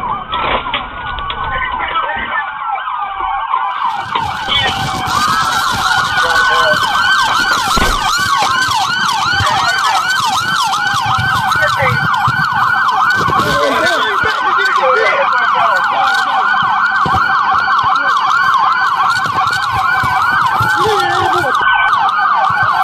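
Several police sirens sounding at once, rapid yelp sweeps overlapping slower rising and falling wails.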